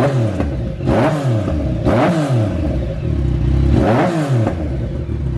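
Three-cylinder motorcycle with a big aftermarket exhaust being revved in quick throttle blips. There are four blips, about one a second with a short pause before the last, and each time the engine note climbs and drops back to idle.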